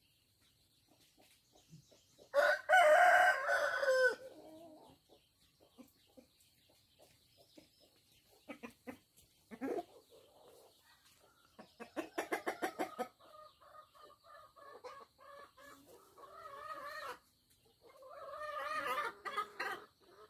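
Rooster crowing, about two seconds in and again near the end, with hens clucking in between.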